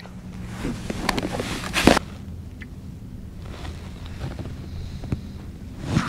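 Open-water ambience on a kayak: wind and water with a steady low hum. Light knocks and rustling from handling in the first two seconds end in a short burst of noise, then only the steady ambience with a few faint ticks.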